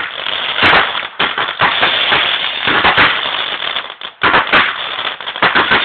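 Fireworks going off: a dense, continuous crackle peppered with many sharp bangs, dropping away briefly about four seconds in before picking up again.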